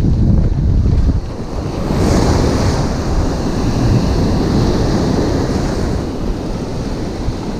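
Ocean surf washing in around the shore and a wave breaking, with wind buffeting the microphone. A rushing hiss of foam swells about two seconds in and fades back near the end.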